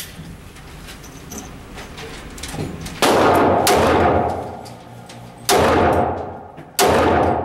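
Four shots from a custom Glock pistol, unevenly spaced and starting about three seconds in. Each is a sharp, loud crack with a long echo trailing off inside an indoor range.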